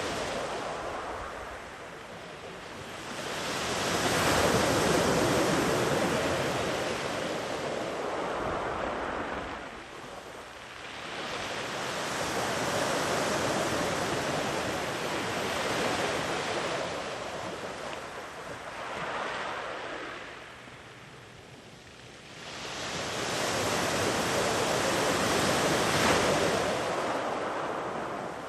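Ocean waves washing up a sandy beach, each one swelling to a long rush of surf and fading, about every eight to ten seconds, with some wind on the microphone.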